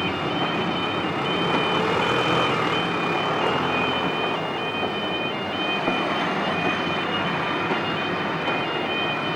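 An electronic warning alarm sounding a steady two-tone pattern, switching back and forth between two high pitches, over a continuous rumbling noise.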